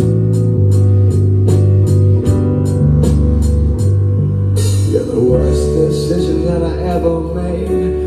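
Live band of bass guitar, drum kit and Novation keyboard playing, the drums keeping a steady cymbal tick about three times a second. About halfway a cymbal crash comes in and a man starts singing over the band.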